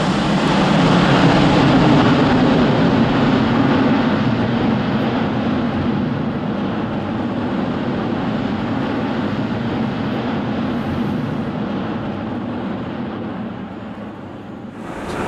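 Airbus A350-900's Rolls-Royce Trent XWB turbofan engines at full power as the jet climbs away after takeoff: a loud, steady jet rush that builds over the first two seconds, then slowly fades.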